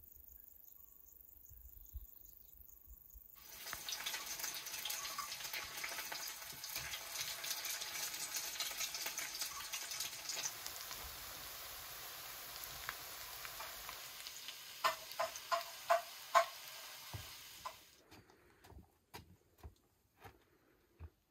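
Patties frying in oil in a cast-iron pan: a dense crackling sizzle that starts a few seconds in and cuts off near the end, with a few sharp metallic clicks of a knife against the pan shortly before it stops.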